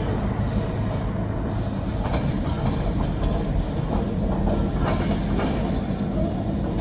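Freight train rolling past, a steady rumble of wheels on rail with faint clicking as the wheels cross rail joints.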